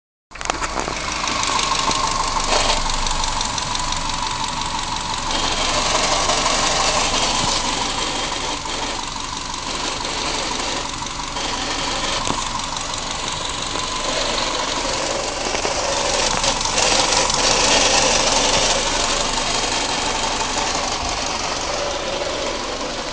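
Subaru EJ18 1.8-litre flat-four engine running with a fast metallic rattle. The rattle comes from the exhaust header heat shield, which is shaking against its mounting because of a loose bolt.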